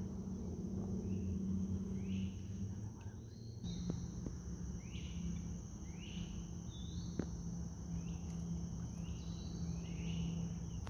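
Summer riverbank insect chorus: a steady high-pitched drone with short chirps repeating about once a second, over a low steady hum. Two faint knocks come partway through.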